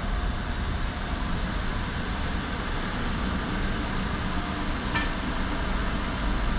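Steady low rumble and hiss of a car idling, heard from inside its cabin, with one short click about five seconds in.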